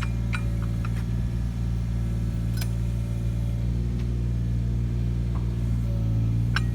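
Takeuchi TB219 mini excavator's diesel engine running steadily, with a few short sharp clicks or cracks over it.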